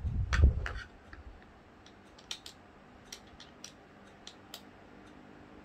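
A dull knock and handling noise about the first second, then a scattered series of light clicks and taps as small tools are picked up and handled on a work surface.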